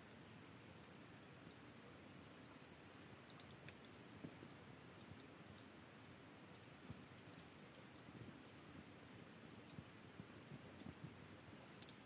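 Firewood logs burning in a campfire, crackling: irregular sharp pops and snaps, a few a second, over a soft low rush of the flames.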